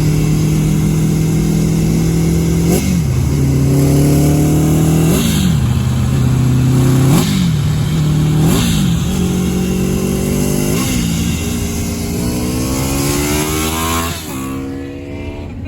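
1984 Honda Nighthawk CB700SC inline-four through aftermarket F1 exhaust pipes, accelerating hard through the gears. The engine note climbs and drops sharply at each shift, about six times. Near the end it falls back and quietens as the throttle closes.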